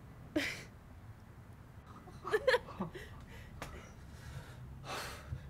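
A person's non-speech vocal sounds: a breathy sigh shortly after the start, a short voiced groan a little past the middle, and another sigh near the end.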